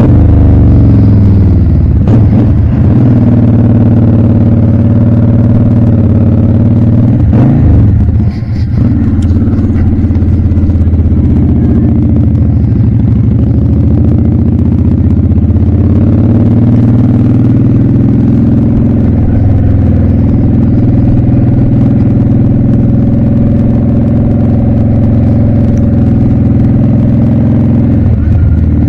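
2007 Honda Shadow VLX 600's V-twin engine running steadily under way on the road. Its note breaks briefly twice, about two and eight seconds in.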